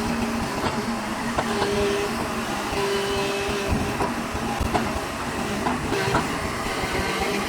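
JCB backhoe loader's diesel engine running steadily as the machine works, with a few short knocks now and then.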